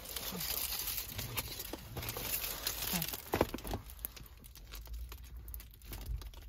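Aluminium foil wrapping and a paper takeaway bag crinkling as a foil-wrapped wrap is handled and unwrapped, an irregular run of sharp crackles, thinning out in the second half.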